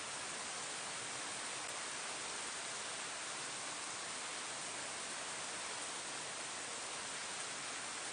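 Steady rain falling on leaves, an even hiss with no separate drops standing out.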